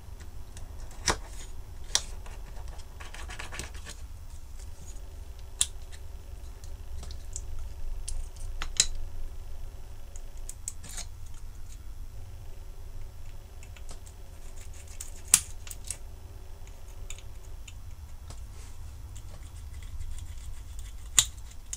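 Brass spiral push drill (Archimedean hand drill) scratching as it bores out the component holes in a milled copper-clad circuit board, with a few scattered sharp clicks.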